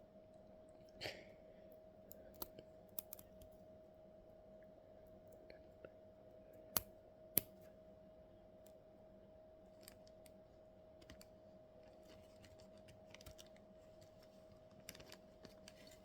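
Scattered light clicks and taps, typical of small parts being handled during a hobby build, with two sharper clicks about seven seconds in, over a faint steady hum.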